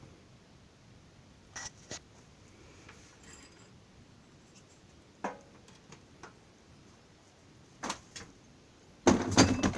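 Scattered metallic clicks and knocks of hand tools and parts being handled during motorcycle disassembly, ending in a louder burst of clattering near the end.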